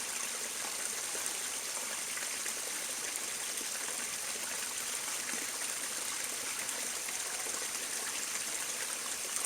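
Small spring-fed creek running steadily over its bed, an even, constant trickle and rush of water.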